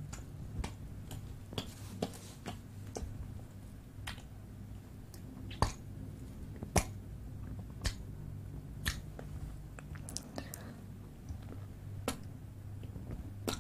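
Close-miked ASMR mouth sounds: wet lip smacks and tongue clicks at an irregular pace, two louder ones about halfway through.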